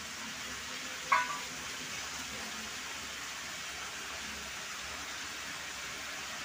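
A steel bowl clinks once against the rim of a steel karahi about a second in, a short ringing metallic note, over a steady hiss.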